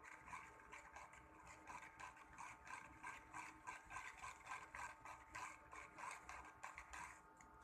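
Shimano 16 Vanquish 4000XG spinning reel making a faint, rhythmic ticking and grinding noise, about two to three pulses a second. The owner takes it for a fault in the brand-new reel: abnormal gear meshing or a loose part inside the spool cap.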